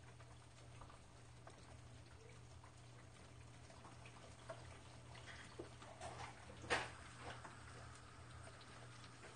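Faint, scattered crackling and ticking of eggs frying in a pan over a steady low hum, with one sharper click about two-thirds of the way through.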